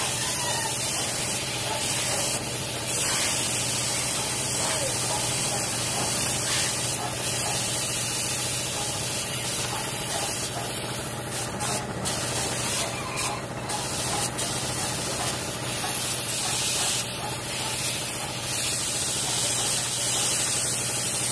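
Gravity-feed paint spray gun spraying a retouch coat on a car panel: a steady hiss of compressed air and atomised paint, with a steady low hum beneath it.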